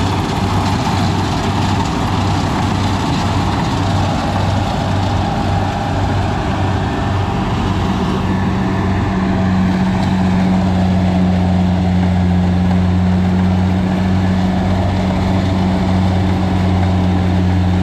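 Kubota DC70 rice combine harvester's diesel engine and machinery running steadily under way. About eight seconds in, a second, higher hum joins and it gets a little louder as the header cuts into the standing rice.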